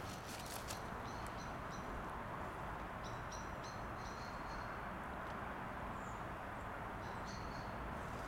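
Small bird chirping outdoors: three quick runs of short, high notes over a steady background hiss of outdoor noise.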